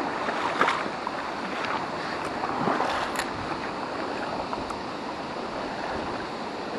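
Shallow river water rippling and burbling steadily, with a few faint clicks through it.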